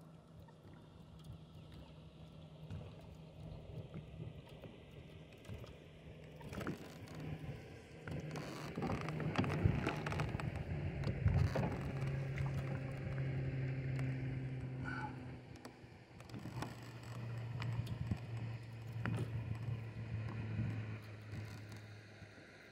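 Fishing reel being cranked as a hooked fish is fought from a boat, with a low steady hum that steps down in pitch in the second half and scattered clicks and knocks, loudest in the middle.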